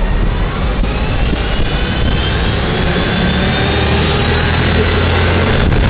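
Steady wind and road rumble on a bicycle-mounted camera riding in city traffic, with the low drone of vehicle engines close ahead growing stronger in the second half and a faint whine rising in pitch early on.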